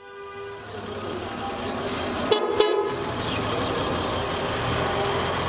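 Bus terminal street noise fading in: vehicle engines rumble steadily and horns toot, one horn sounding at the start and a quick burst of sharp toots about two and a half seconds in.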